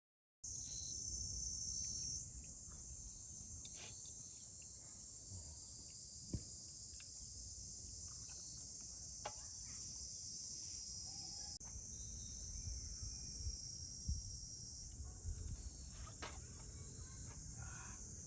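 Insects trilling in a steady high-pitched chorus over a low rumble of wind on the microphone, with a few faint knocks. It cuts in after a moment of silence and changes slightly partway through at an edit.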